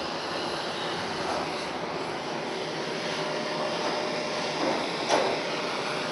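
Gas torch burning with a steady rushing roar while heating the weld seams of a windscreen frame for tinning and lead loading, with a couple of light knocks about five seconds in.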